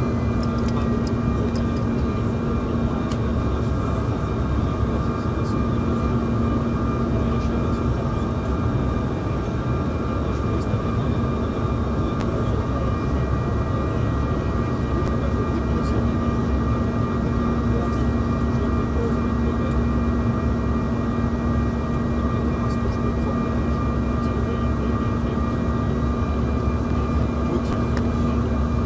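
Steady cabin noise inside a Bombardier CRJ1000 in flight: the rumble of its two rear-mounted General Electric CF34 turbofans and the airflow, with a few steady whining tones over it. The low hum fades for a few seconds midway and then returns.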